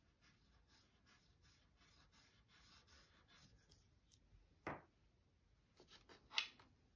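Faint, scratchy strokes of a soft oil pastel stick rubbed across paper, repeated several times. Near the end come a sharp tap and then a louder little cluster of taps.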